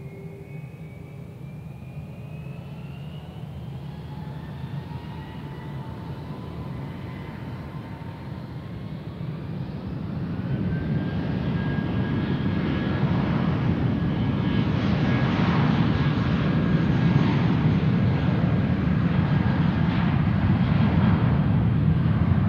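Airbus A320-232's two IAE V2500 turbofans spooling up to takeoff thrust. Several whines rise in pitch over the first ten seconds. The engines then grow much louder and settle into steady jet noise with a high fan whine held on top as the airliner accelerates down the runway.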